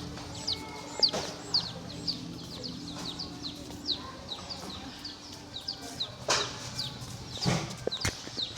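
A brood of baby chicks peeping: many overlapping high, short, falling peeps, several a second, with a couple of dull knocks in the second half.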